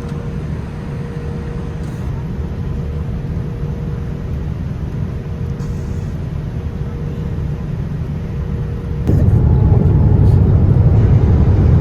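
Airliner cabin noise: the steady low rumble of the jet in flight, with a faint steady hum over it. About nine seconds in it abruptly gets louder.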